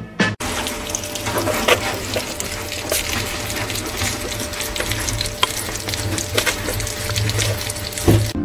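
A group of hedgehogs eating together from one dish of soft food: a dense, steady crackle of many small lapping, smacking and chewing sounds.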